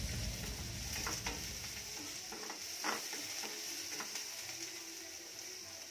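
Food sizzling in a metal wok over a gas burner as it is stirred, with the utensil scraping and clicking against the pan a few times.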